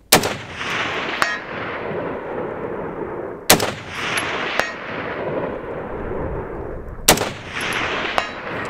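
Three rifle shots from a SIG-Sauer 716i Tread in .308 Winchester, evenly spaced about three and a half seconds apart. Each crack is followed by a long echo that fades over a few seconds, with a faint sharp tick about a second after each shot.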